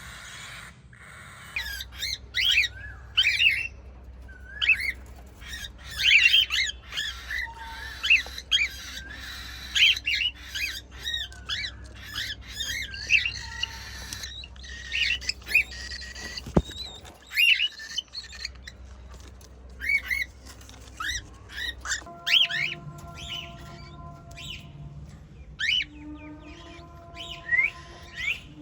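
Cockatiels chirping and squawking in quick, short calls that come in clusters, some of them loud and shrill.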